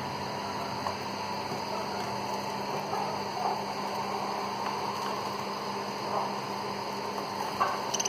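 Pet budgerigars chattering softly over a steady hiss and low hum, with a few sharper chirps near the end.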